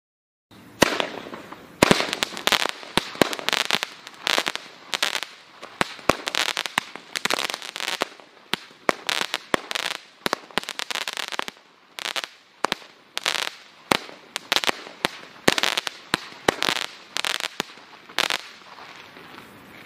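T-Sky 'U.S. 101 Airborne' 18-shot daytime parachute cake firing: a long run of sharp launch thumps and bursts, about one to three a second, with hiss between them. It starts about half a second in and stops a little before the end, leaving a fading hiss.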